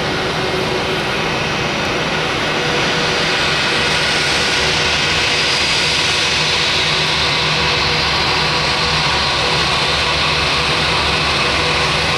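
Jet airliner engines running loud and steady, with a whine of several held tones over the rushing noise, growing a little louder about three to four seconds in.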